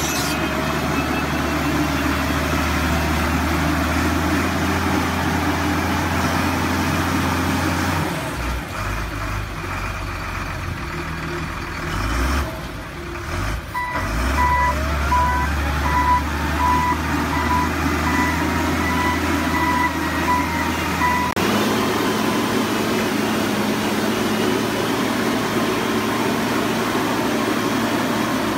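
Wheel loader's diesel engine running, pulling harder for stretches and easing in between. About halfway through, the loader's reversing alarm beeps about twice a second for several seconds.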